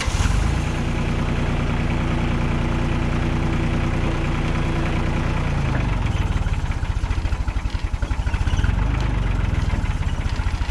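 New Holland compact tractor's diesel engine running hard as its front loader pushes against a wooden shed. It comes in loud and runs at a steady pitch, then about six seconds in its note drops and wavers with a pulsing loudness as the engine takes the load.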